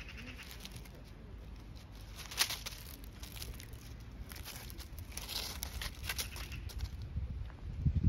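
Dry fallen leaves rustling and crackling as they are trodden and stirred, with a sharp crackle about two and a half seconds in and busier rustling in the second half.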